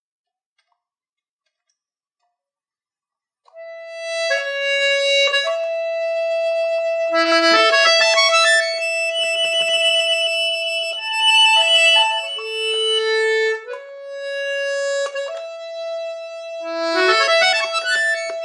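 Solo accordion playing. After a few seconds of silence it comes in with long held reedy notes, broken by flurries of quick running notes.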